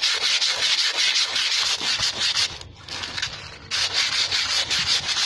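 Emery paper scrubbing by hand against the inside braking surface of a motorcycle rear brake drum, a fast scratchy rubbing that stops for about a second midway and then resumes. The paper is taking the glaze off the drum so the brake shoes will grip instead of slipping.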